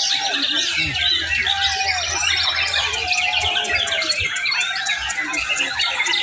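Many caged white-rumped shamas singing at once, a dense, unbroken tangle of overlapping whistles, trills and chattering notes.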